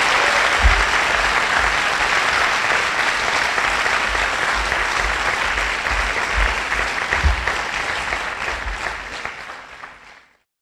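Audience applauding steadily, tapering off and then cut off abruptly near the end.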